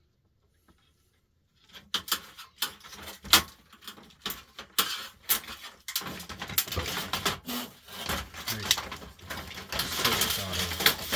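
Parts of an outdoor lamp fixture being handled and taken apart: a string of sharp clicks and knocks with scraping and rubbing, starting about a second and a half in and getting busier and louder from about halfway.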